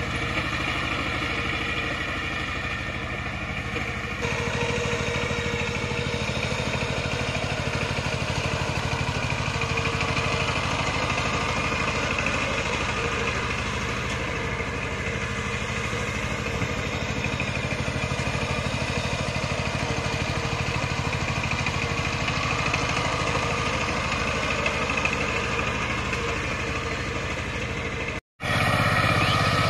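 Two-wheel power tiller's single-cylinder diesel engine running steadily under load while tilling wet mud. The sound drops out for a moment near the end.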